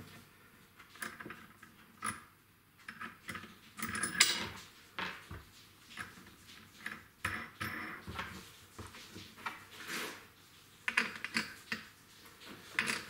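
Irregular light knocks, clicks and clatter of parts being handled and set down at a workbench, the loudest knock a little after four seconds in.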